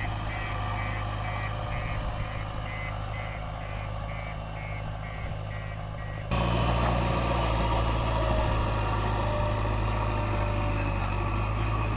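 Backhoe loader's diesel engine running steadily while its reversing alarm beeps about twice a second. About six seconds in, the beeping stops and the engine suddenly becomes louder.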